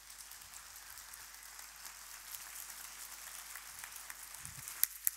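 Audience applauding at the end of a talk, the clapping building up, with loud sharp claps close by near the end.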